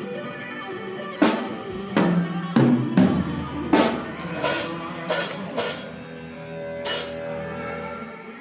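Drum kit played in loose, uneven hits at a sound check: kick and snare strikes with several cymbal crashes ringing out, the first loud hit about a second in and the last near seven seconds.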